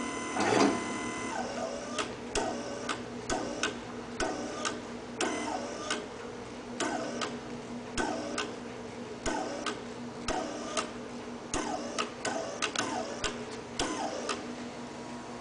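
Electro-hydraulic actuator's pump motor running in short steps as the drive is run down. A steady whine for the first second or so gives way to repeated clicks, many followed by a short falling whine, over a steady hum.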